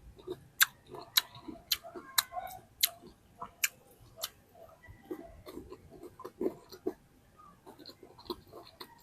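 Close-miked eating sounds as mango and pomelo are eaten: a run of sharp clicks, about two a second at first and then sparser, with small soft mouth sounds between.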